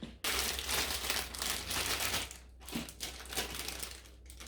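Plastic packaging crinkling and rustling as it is handled in short, uneven bursts.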